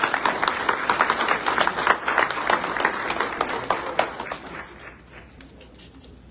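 Audience applauding, many hands clapping at once, fading out about four to five seconds in.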